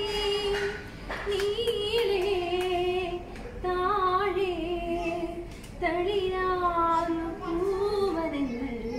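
A woman singing unaccompanied, in long held, gliding phrases with short breaks between them.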